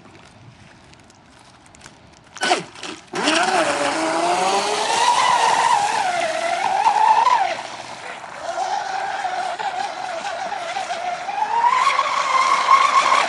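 Radio-controlled catamaran speedboat's motor: a couple of short throttle blips a little over two seconds in, then running flat out with a whine that rises and falls with the throttle, easing off around the middle and climbing again near the end.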